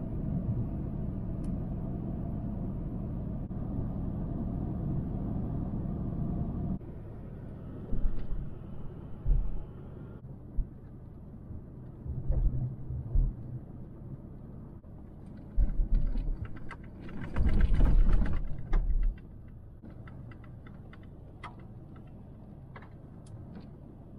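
Low, steady rumble of a vehicle driving over a rough road, which drops away about seven seconds in to a quieter background broken by scattered low thumps and knocks.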